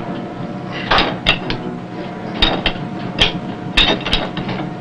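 Metal clanking of a submarine torpedo reload: about eight sharp, irregularly spaced knocks of tools on the torpedo-handling gear, over a steady machinery hum.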